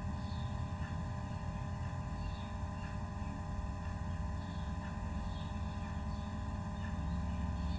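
Steady low hum and rumble of background noise, with a few faint steady tones above it and no distinct sound events.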